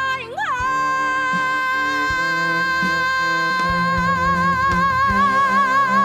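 A woman belting one long, high sustained note over an instrumental backing track: she slides up into it about half a second in, holds it steady, then lets a vibrato widen through the second half.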